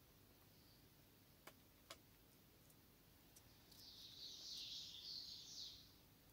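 Quiet handling sounds of a rhinestone chain on a gelatin sheet: two small clicks, then about two seconds of soft, high rustling around the middle, with a few faint ticks.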